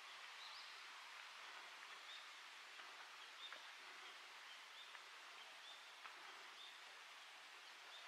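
Faint outdoor ambience in a quiet forest: a steady hiss with short, high bird chirps repeating about once a second, and a few soft ticks near the middle.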